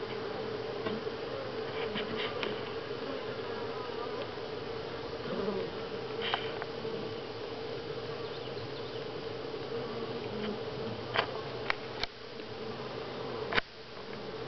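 A honey bee colony humming steadily on the comb. Several sharp clicks come near the end.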